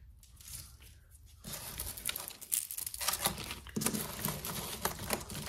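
Hands rummaging through a pile of costume jewelry. Beads, pearls and metal chains click and rattle against each other in a dense, uneven run that starts about a second and a half in.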